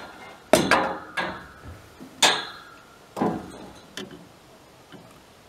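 Irregular sharp knocks and clatters on the boat's ribbed deck, about six of them, the loudest about half a second in and just after two seconds, each ringing briefly; they stop about four seconds in.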